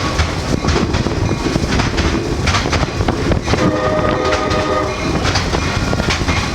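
Train rolling by, wheels clicking over the rail joints over a low rumble, with the horn sounding one long blast of about two and a half seconds midway.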